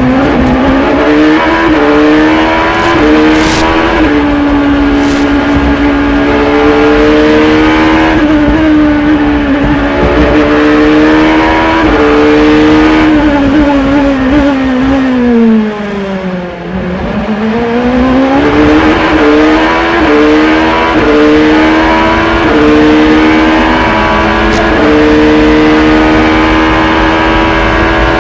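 Onboard sound of an Acura prototype race car's engine at high revs, the pitch stepping with gear changes. About fourteen seconds in the revs fall away and the sound drops as it slows for a corner, then the engine climbs back up through the gears.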